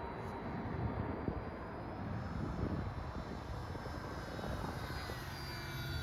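Electric motors and propellers of a radio-controlled Avios Twin Otter floatplane in flight: a thin whine over a low rumble, rising in pitch near the end.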